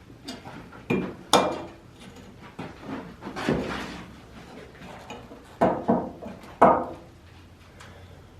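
Irregular sharp clanks and knocks of metal parts of an old boiler being worked loose and handled during its removal, about six hits with short ringing tails and a longer clattering one midway.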